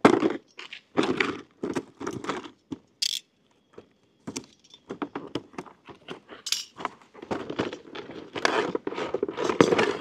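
Unboxing handling noise: a cardboard toy box being cut open with a utility knife and its clear plastic packaging tray being pulled out. Irregular clicks, scrapes and short tearing sounds, with crinkly crackling near the end.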